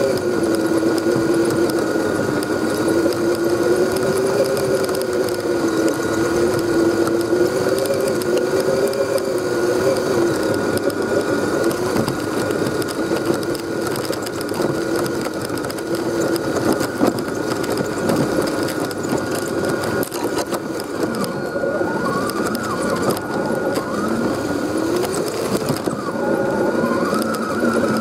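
Axial SCX10 RC crawler's electric motor and gear drivetrain whining, its pitch wandering up and down with the throttle, with a steady high tone over it. In the last several seconds the pitch swings up and down more quickly.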